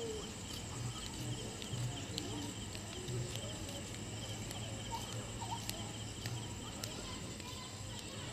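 Steady night chorus of insects, crickets chirring in a fine pulsing trill, over a low steady hum with a few faint clicks.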